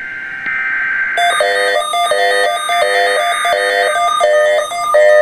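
Emergency alert test tones: a screechy SAME data burst ends about a second in, then a repeating pattern of electronic beeping tones cycles a little faster than once a second.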